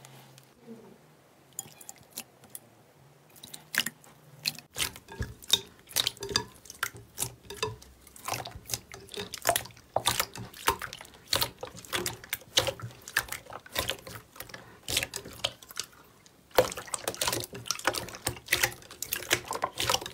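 Hands pressing and kneading a large bowl of clear, watery slime, making a run of wet squelches, pops and crackles. It starts quiet with a few scattered clicks and becomes dense about four seconds in, growing louder again near the end.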